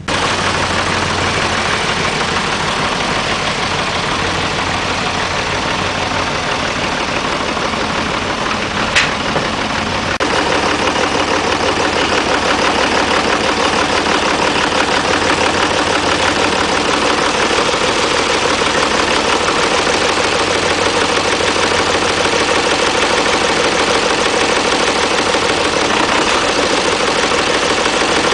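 Loader tractor's engine starting up and running steadily, with a sharp click about nine seconds in and the engine getting slightly louder about a second later.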